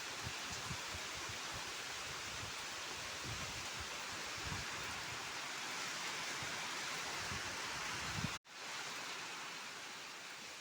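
Steady rain falling with a constant hiss and scattered low thuds. The sound cuts out for an instant about eight seconds in, then resumes.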